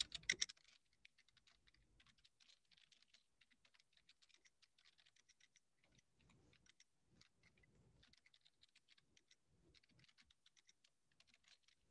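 Faint computer keyboard typing: irregular runs of keystrokes as code is entered, a little louder in the first second.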